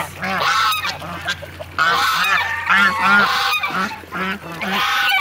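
Several geese honking over and over in bouts, with shorter, lower calls mixed in among them.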